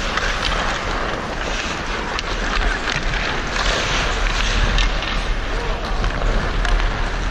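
Ice hockey skates scraping and carving across the rink, with wind rushing over a referee-worn camera's microphone as it skates along.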